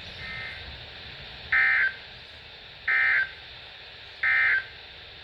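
Emergency Alert System end-of-message data bursts from NOAA Weather Radio receivers: three short, shrill two-tone digital squawks about a second and a half apart over faint radio hiss, with a weaker burst just before them. They signal that the severe thunderstorm warning broadcast has ended.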